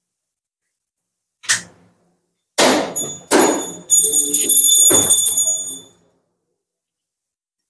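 A hanging temple bell is struck four times in quick succession, starting about two and a half seconds in. It rings on in a steady high tone that dies away by about six seconds. A single short knock comes about a second before the first strike.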